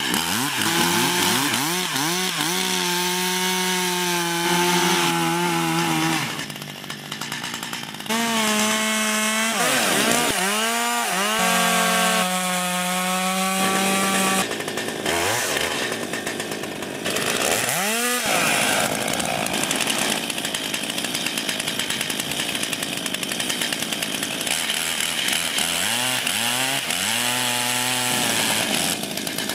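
A large two-stroke chainsaw with a long bar is cutting into a huge tree trunk. Its engine note repeatedly rises and falls as the throttle is worked, with steady stretches at full speed while the chain is buried in the wood.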